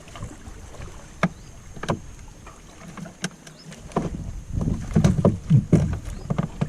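Knocks and bumps in a small river boat as a fishing net is handled aboard. A few sharp single knocks come first, then a quick run of heavier thuds about four to six seconds in.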